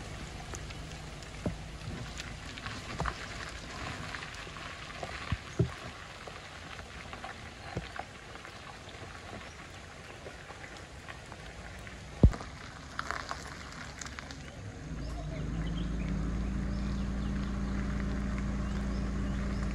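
Light rain falling, with scattered drips and taps. About fifteen seconds in, a Perodua Myvi hatchback's engine starts to be heard idling steadily as a low hum.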